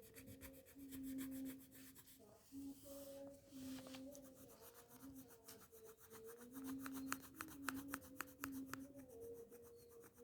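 Faint scratching of a grey colour pencil on a colouring-book page: many quick back-and-forth shading strokes, busier in the second half, with a low steady hum underneath.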